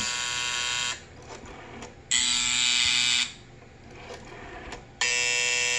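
1A2 key telephone buzzers sounding over the intercom, three separate steady buzzes of about a second each with short gaps between. Each buzz is set off by rotary dialling an extension, and the solid-state key system controller times every rotary-dialled buzz to about one second.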